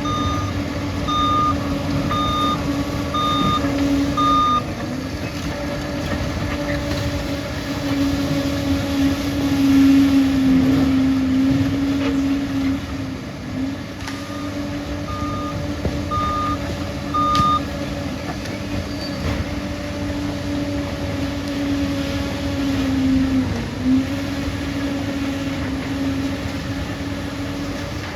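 Liebherr crawler bulldozer's diesel engine running steadily under load, its pitch sagging briefly a few times. The reversing alarm beeps about once a second, five times at the start and about four times again around the middle, as the dozer backs up.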